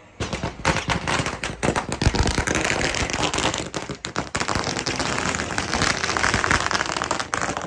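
A string of firecrackers going off: a dense run of rapid sharp cracks and bangs that starts abruptly and cuts off near the end.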